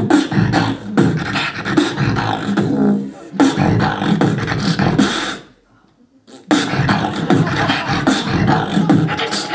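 Solo beatboxing into a handheld microphone: a fast rhythm of mouth-made kicks, snares and bass hits. The beat drops out for about a second a little past halfway, then comes back in.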